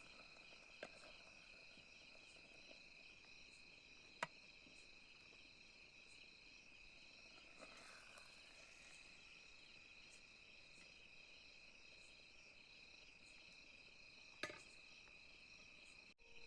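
Faint, steady chirring of crickets, with two sharp clicks, one about four seconds in and one near the end.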